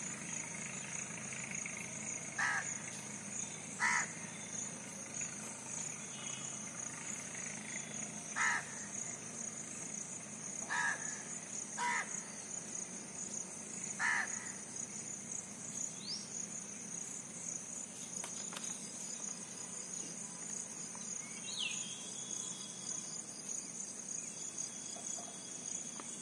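A bird's short, harsh calls, about six of them a few seconds apart, over a steady high-pitched insect drone.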